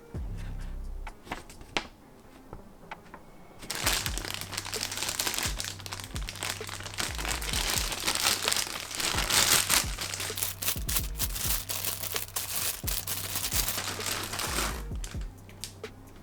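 Plastic packaging crinkling as it is handled and unwrapped, with a few light clicks at first and then dense crackling from about four seconds in until shortly before the end.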